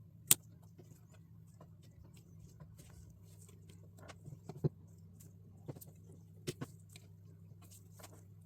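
LEGO plastic pieces clicking and tapping as they are handled and pressed together, with one sharp click near the start and a few smaller ones later, over a steady low hum.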